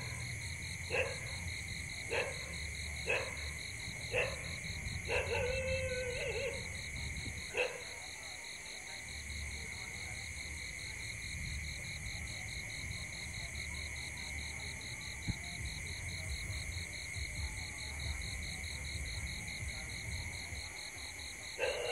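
Night chorus of insects: a steady high buzz and a fast pulsing trill over a low rumble. Over the first eight seconds an animal calls about seven times, roughly once a second; one call near the middle of the series is longer and warbling.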